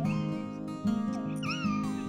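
Acoustic guitar music, strummed, with a cat meowing over it; the longest, most prominent meow comes in the second half.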